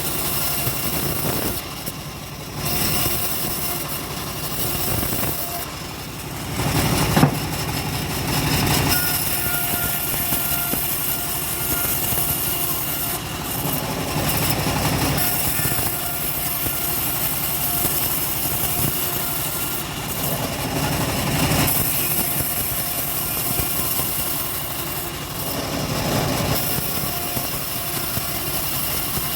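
Engine of a homemade bandsaw mill running steadily, its level swelling and easing every few seconds, with one sharp knock about seven seconds in.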